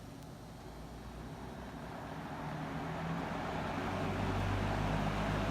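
1970s Penncrest (McGraw-Edison) 20-inch metal box fan spinning up on high: a rushing of air that grows steadily louder over about four seconds, then holds steady with a low motor hum.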